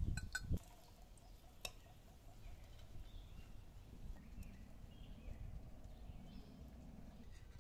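A few quick clinks and taps of a metal spoon against a steel frying pan and china plate as fried eggplant slices are lifted out, with one more light tap a little later. After that, only faint outdoor background.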